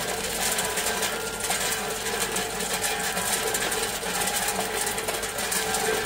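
Tube ice pouring from a tube ice machine during harvest, the solid ice tubes clattering continuously onto a heap of ice in a bin, over a steady machine hum.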